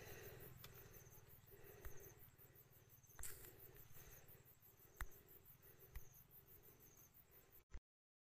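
Near silence: faint room tone with a soft, regular pulsing and a few faint clicks, cutting to dead silence near the end.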